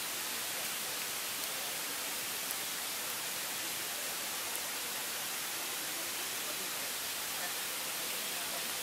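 Steady, even hiss of noise, brighter in the upper range, with no distinct events.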